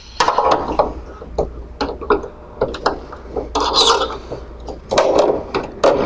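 Screwdriver and hands working inside a sheet-metal equipment housing to remove an illumination bulb: irregular scraping and rubbing with sharp clicks, in several bursts.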